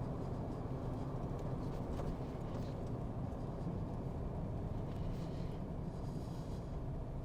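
Steady low rumble of a vehicle driving along a road, engine and tyre noise heard from inside the cab.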